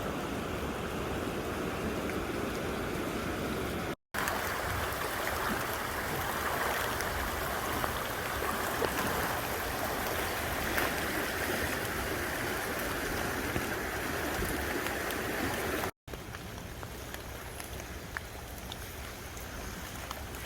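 Fast-flowing river water rushing in a steady, even noise. Its character shifts at two abrupt cuts, about four and sixteen seconds in, and it is quieter after the second cut.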